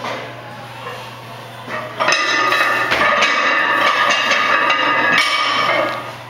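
Metal gym equipment, such as steel weight plates and barbell, clanking and ringing. It is loudest from about two seconds in until near the end, over a steady low electrical hum.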